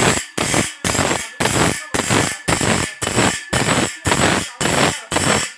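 Bench grinder's abrasive wheel grinding the teeth of a long steel saw blade, tooth after tooth: a rhythmic rasping of metal on the wheel, about two strokes a second.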